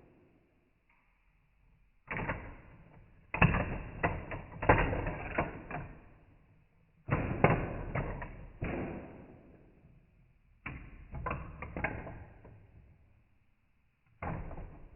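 Glass marbles clacking and rattling through a wooden UGears marble run, in five bursts of sharp knocks that each die away, with quiet gaps between.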